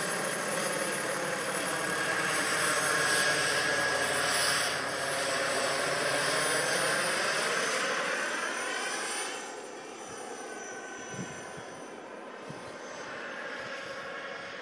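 Radio-controlled model helicopter in flight: its motor whine and rotor noise sweep in pitch as it passes overhead. About nine and a half seconds in the sound drops away as the helicopter flies off into the distance.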